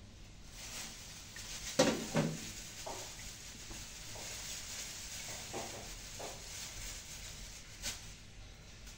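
A few knocks and clatters of kitchen utensils and cookware, the loudest two about two seconds in and another near the end, over a faint steady hiss.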